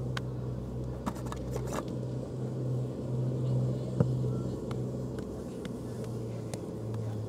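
A steady low hum, with a few faint clicks and one sharp knock about four seconds in.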